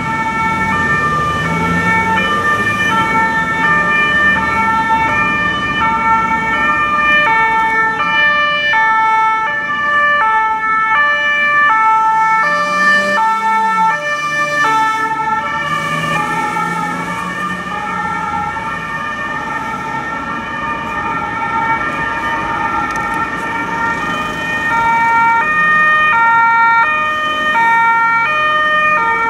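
Emergency vehicles' two-tone sirens, several overlapping and out of step, each switching back and forth between two pitches, over the rumble of vehicle engines and tyres.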